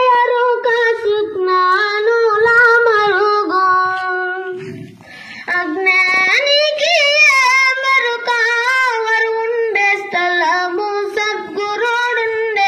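A boy singing solo into a handheld microphone, holding long notes with melodic turns and ornaments. He breaks off briefly for a breath about five seconds in.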